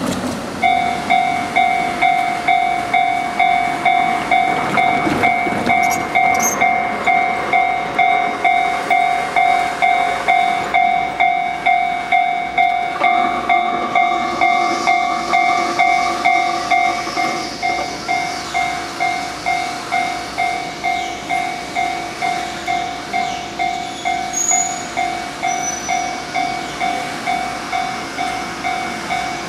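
Japanese railway level-crossing warning bell ringing steadily, about two electronic clangs a second, with the crossing closed for a train. A steady higher tone sounds alongside it for about four seconds midway.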